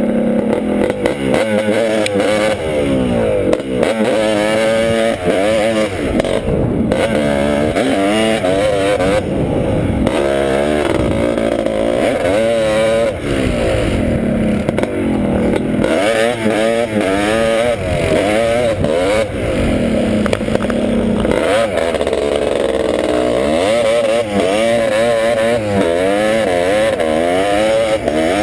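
Honda ATC250R three-wheeler's two-stroke single-cylinder engine revving hard while riding, its pitch climbing and dropping back over and over as the throttle is worked.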